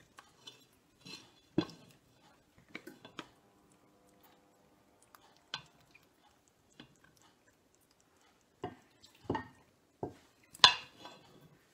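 Black plastic ladle knocking and scraping against a large stainless steel pot as braised lamb shanks are lifted out: a scatter of separate clinks and knocks, the loudest near the end.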